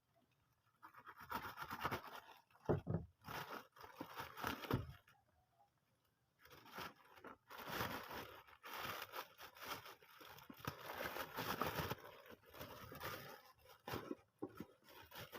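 A parcel's packaging being opened and handled by hand: irregular bursts of scraping, tearing and rustling, with short pauses near the start and about five seconds in.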